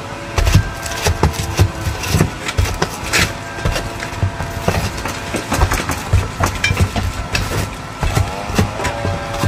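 Roofing work on a shingle roof: irregular sharp knocks and heavy thumps from the crew's tools, two or three a second, over a steady mechanical hum.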